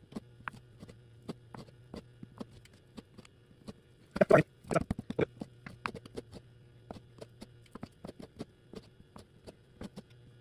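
Knife blade tapping and clicking on a bamboo cutting board as raw meat is sliced into chunks, in irregular sharp taps. About four seconds in comes a louder, brief noise.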